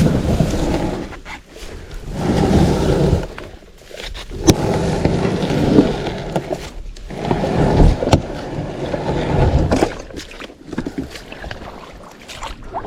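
Kayak being dragged and slid into the water, a noisy scraping in about four surges with short pauses between, with a few sharp knocks along the way.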